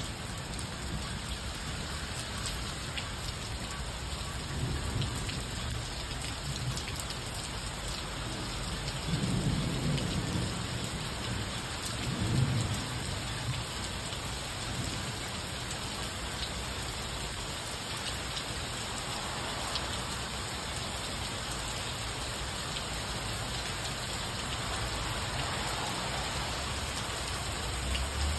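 Heavy rain pouring down in a steady, dense hiss. Low rumbles of thunder swell up about ten seconds in and again about twelve seconds in.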